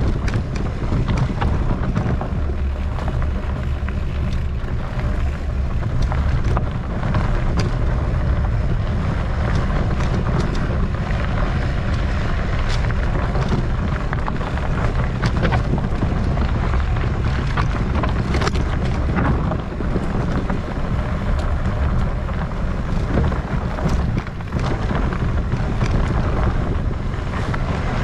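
Wind buffeting the microphone as a mountain bike rolls along a rough trail, with frequent clicks and rattles from the bike over the ground.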